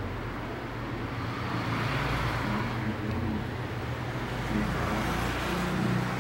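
A person snoring loudly with the mouth open, with two long, rasping breaths that swell and fade.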